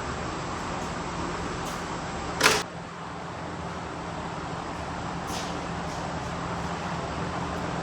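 Steady background noise with a faint low hum, broken by one sharp knock about two and a half seconds in, and a fainter click a few seconds later.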